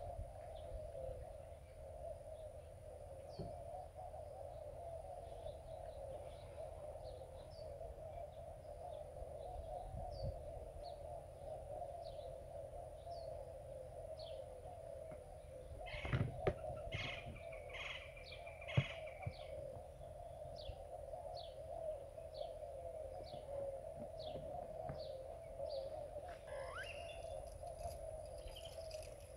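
Riverside ambience: a bird gives short, high, downward chirps about once a second over a steady drone and a low rumble. A few knocks and clatters come about halfway through.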